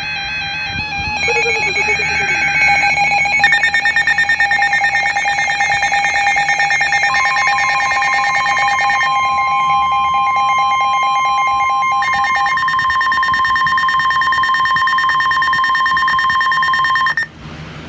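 Emergency Alert System broadcast tones. A short burst of warbling data tones gives way to loud, steady electronic attention tones, with several overlapping tones starting and stopping at different moments. They cut off abruptly about 17 seconds in.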